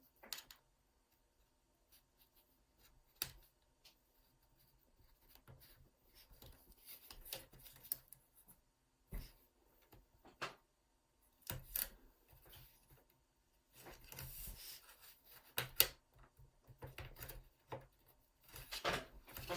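Snap clips of an MSI GP66 Leopard laptop's case releasing as the bottom panel is pried loose, with scattered light clicks and pops and stretches of scraping and rubbing along the seam. Light pops like these are the normal sound of clips letting go, not the harsh crack of breaking plastic.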